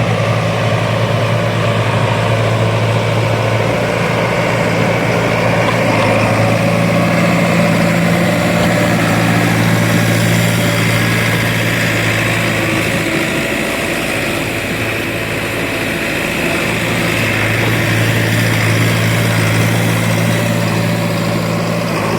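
Heavy diesel machine engine running steadily with a low drone. About thirteen seconds in, the low note falters for a few seconds, then settles back to its steady run.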